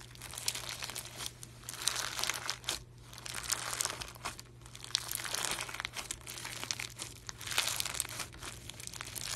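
Hands squeezing and kneading slime packed with orange beads: dense, irregular crackling and crunching that swells into louder bunches every second or two, over a faint steady low hum.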